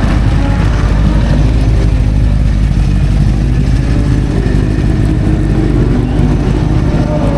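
Classic racing car engine running loudly, a deep, steady note with no clear rise or fall in pitch.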